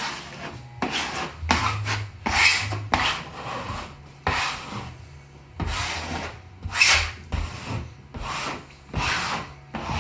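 Wallpaper smoother (squeegee) swept hard across freshly pasted, creased wallpaper in repeated rubbing strokes, about one a second, pressing the sheet flat against the wall.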